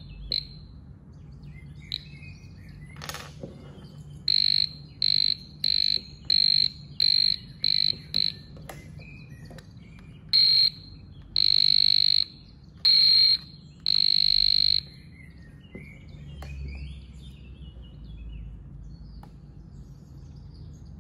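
Aneng VD806 non-contact voltage tester pen beeping at a high pitch as it senses live AC mains voltage in a socket. It gives a quick run of about seven short beeps, then, after a pause, a few longer, irregular beeps as the tip is moved near the socket.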